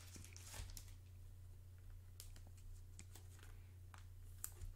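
Faint ticks and rustles of a trading card being handled and slid into a soft plastic card sleeve, over a low steady hum.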